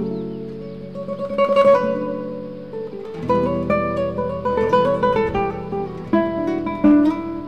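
Background music: solo acoustic guitar, plucked notes with a few strummed chords.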